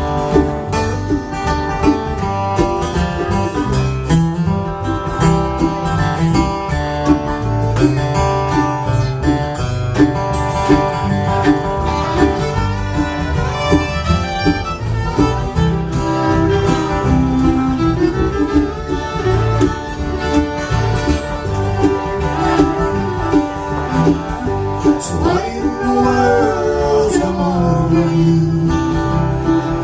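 Acoustic string band playing live: an instrumental break with a melodic lead over strummed chords and bass, with no singing.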